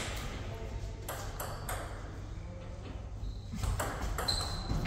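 Table tennis rally: the ball clicks sharply off the paddles and the table in a quick, irregular series of ticks.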